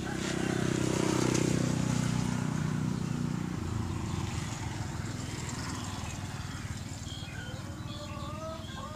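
A motor vehicle's engine passes close by, loudest about a second in and fading away after about three seconds. Chickens cluck near the end.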